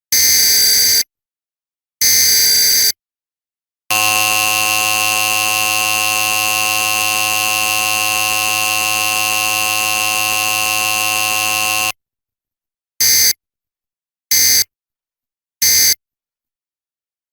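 Emergency Alert System test tones: the last two of the three screeching digital header bursts, then an eight-second two-tone attention signal, then three short end-of-message bursts, with no spoken test message between the attention signal and the end bursts.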